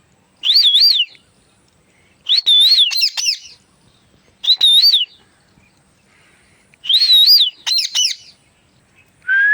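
Pet parrot whistling the same short warbling phrase four times, its pitch wavering up and down, with pauses between.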